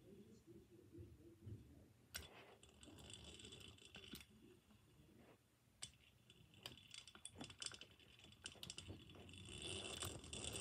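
Faint clicks and light rattling of a small hand-crank siren being handled, its metal parts knocking now and then. A faint rushing sound grows over the last couple of seconds.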